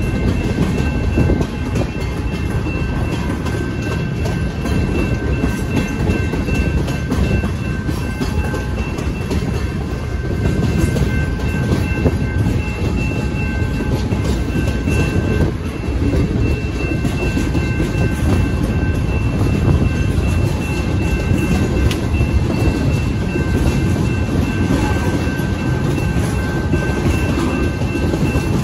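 Tank cars rolling slowly through a grade crossing, their steel wheels rumbling and clicking over the rails. A steady ringing from the crossing's warning bell sounds throughout.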